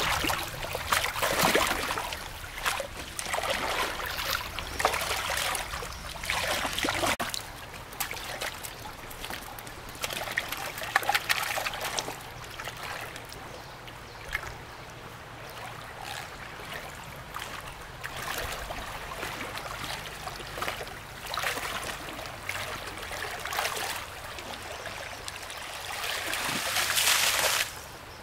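Water trickling and splashing in uneven bursts, with a louder, longer rush of water near the end that stops suddenly.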